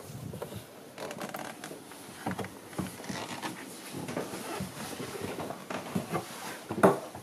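Footsteps going down wooden companionway steps onto a teak cabin floor inside a yacht's saloon, with irregular knocks, creaks and rustles and a sharper knock near the end.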